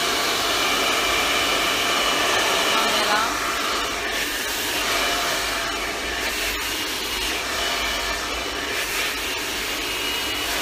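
Handheld hair dryer running steadily, blowing onto long hair being styled over a round brush.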